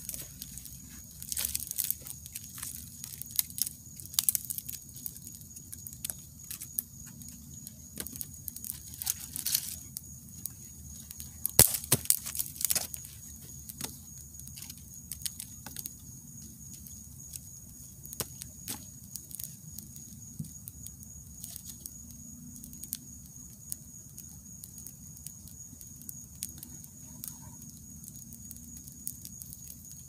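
Wood campfire crackling and popping, busiest in the first half with the loudest pops a little under halfway through, then thinning to occasional snaps. A steady, faint, high-pitched whine sits under it.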